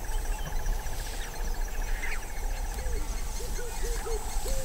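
Outdoor ambience of trilling insects: a fast steady trill that stops about two and a half seconds in, over a thin high insect hiss. From about halfway, a run of short, low hooting notes comes in, about three a second.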